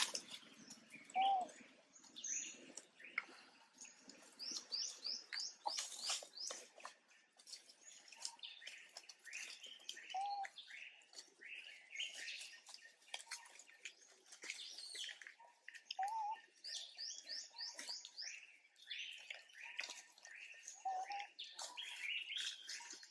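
Several wild songbirds chirping and trilling in an overlapping chorus, with a short, lower whistled note coming four times and a few faint clicks.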